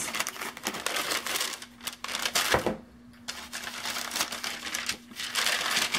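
Brown kraft paper bag crinkling and rustling as it is handled and lifted out of a cardboard box, with a soft knock and a brief lull about halfway through.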